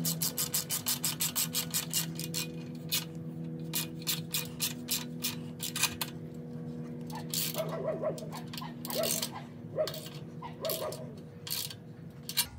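Socket ratchet clicking quickly, about six to seven clicks a second, as it tightens an exhaust clamp. Then come slower, scattered clicks and a few short squeaks of metal being worked.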